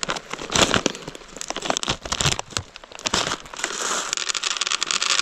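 Crinkling and tearing of a plastic M&M's candy wrapper being ripped open by hand. From about three and a half seconds in, a steady rattling rush follows as the candies pour out onto a wooden cutting board.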